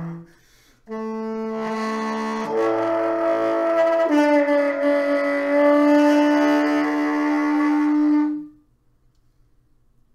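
Solo tenor saxophone: a held note breaks off, and after a short pause a phrase of a few changing notes settles into one long held low note that stops about eight and a half seconds in.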